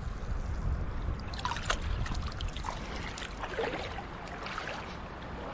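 Shallow seawater splashing and trickling as a hand reaches and gropes in it, with a few small sharp splashes about a second and a half in and again after three and a half seconds, over a steady low rumble.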